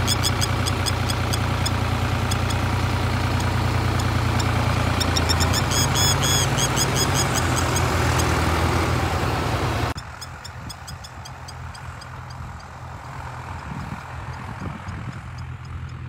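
A tractor engine running steadily with a spur-winged lapwing's short, sharp alarm calls repeated over it, the bird defending its nest in front of the wheel. About ten seconds in the engine sound stops abruptly, leaving a quieter field with fainter calls.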